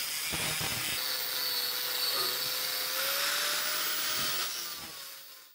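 Angle grinder grinding out a spot weld on the sheet-steel windshield frame of a truck cab, running steadily under load, then fading out near the end.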